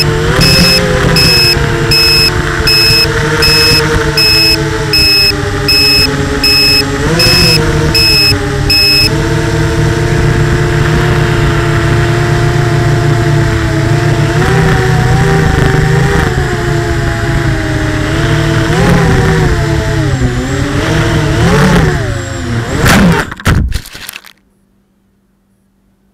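Motors and propellers of a 210-size FPV racing quadcopter, heard through its onboard camera's microphone, whining steadily with the pitch rising and falling as the throttle changes. A high beep sounds about three times every two seconds for the first nine seconds or so. Near the end there are a couple of sharp knocks as the quad comes down, and the motor sound cuts out, leaving only a faint hum.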